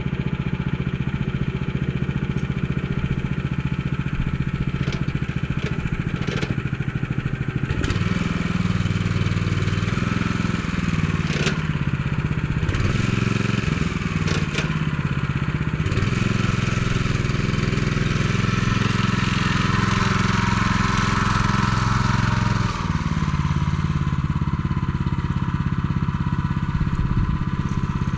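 MTZ-09N walk-behind tractor engine running steadily while pulling a loaded trailer, its note stepping up and down several times as the throttle and load change. A few sharp knocks sound near the middle.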